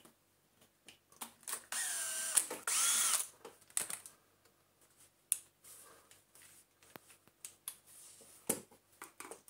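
Small electric screwdriver running for about a second and a half, its whine rising and bending as it drives out a screw. Afterwards, scattered small clicks and taps of the bit and plastic parts being handled, with one sharper knock near the end.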